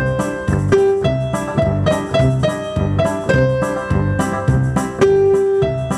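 Piano music with a steady beat: repeated struck chords over a moving bass line.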